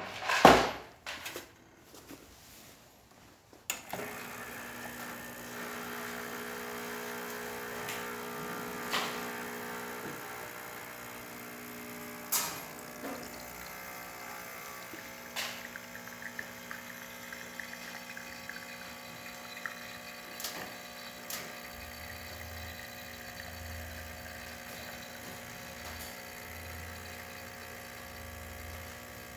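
A sharp knock near the start and a few clicks, then about four seconds in the Diletta Bello espresso machine's vibratory pump starts and runs with a steady hum while a single shot of espresso is pulled, with occasional clicks along the way.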